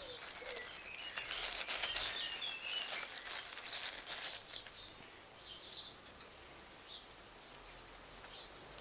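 Small garden birds chirping, with a busy run of clicking and rustling handling noise through the first few seconds that then dies away.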